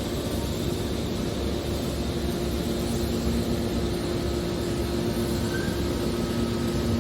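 Hydraulic waste metal baler running, its motor and pump giving a steady drone with a low, even hum.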